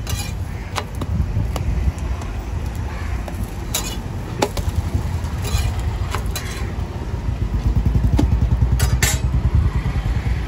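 A metal spatula clinks and scrapes on a flat iron griddle several times, over a steady low rumble of motor traffic. A motor-vehicle engine pulses close by, loudest near the end.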